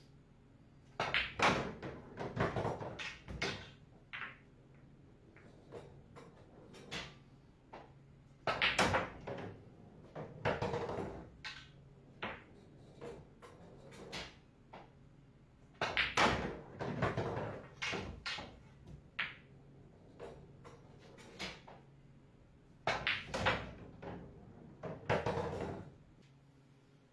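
Pool balls being shot: cue tip striking the cue ball, balls clacking together and knocking into the pockets, in four bursts of several sharp knocks spread a few seconds apart.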